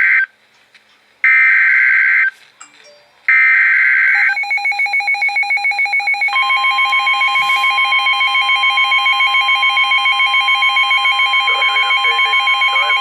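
Emergency Alert System broadcast: three one-second bursts of the warbling digital data header, then a rapidly pulsing alert tone, joined about six seconds in by a steady higher tone.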